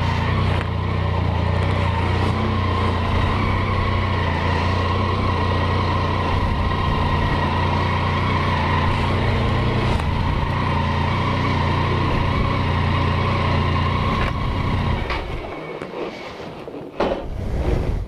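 Triumph motorcycle engine idling steadily, then switched off about fifteen seconds in, followed by a few knocks.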